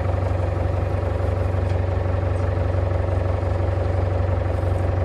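A fishing boat's engine running steadily, a constant low drone.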